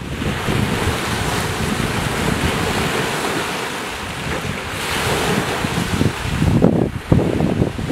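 Small waves washing onto the shore, with wind buffeting the microphone in low rumbling gusts that grow stronger near the end.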